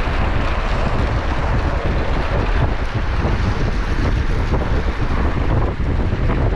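Wind buffeting the microphone of a camera riding on a racing bicycle at speed: a loud, steady rushing noise, heaviest in the low end.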